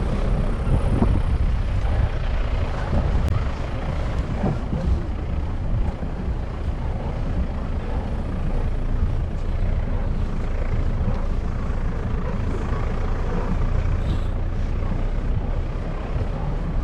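Strong wind buffeting the microphone: a loud, uneven low rumble that holds steady throughout.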